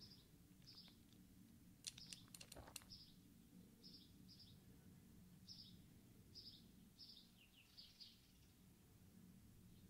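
Near silence over a steady low hum, with a bird faintly chirping in short high chirps every second or so. A quick run of sharp clicks comes about two seconds in.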